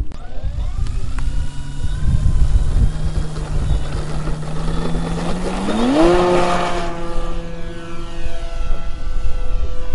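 RC model airplane's motor and propeller running at a low steady pitch, then throttled up sharply about six seconds in to a higher steady pitch for the takeoff and climb-out. Wind rumbles on the microphone throughout.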